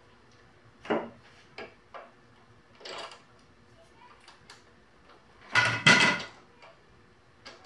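A ratchet wrench turning a spark plug thread-repair tap in a mower engine's spark plug hole, giving short, scattered metallic clicks and rasps. The loudest burst comes about six seconds in.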